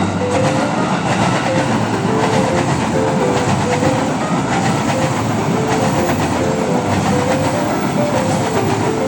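A passenger train passing close by, its wheels clattering over the rail joints with a loud, steady rumble.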